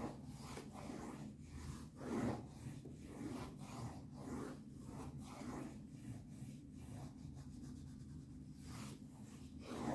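Coloured pencil scratching on drawing paper in quick, repeated back-and-forth strokes, about two to three a second, as an area of the drawing is shaded in.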